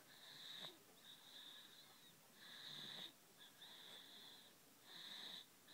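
Faint high whistling wheeze of a sleeper's breathing, about six whistling breaths in a row with short gaps between them.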